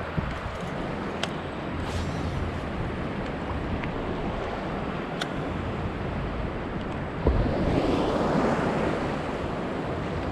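Gulf surf washing around a wading angler, with wind on the microphone; a louder wave surges in about seven seconds in.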